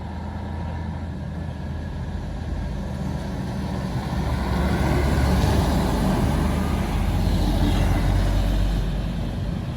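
UD Quester truck's diesel engine running hard under load on an uphill climb, a steady low drone that grows louder about four seconds in and eases slightly near the end.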